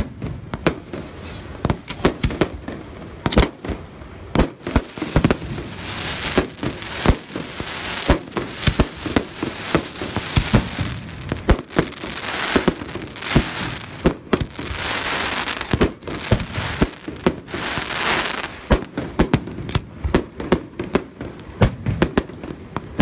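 Fireworks display: a rapid, irregular run of shell bursts and bangs, with crackling throughout and several stretches of dense hissing crackle.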